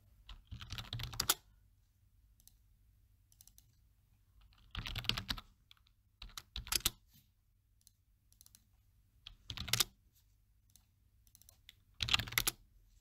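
Typing on a computer keyboard in about five short bursts of keystrokes with pauses between them, as input names are typed in.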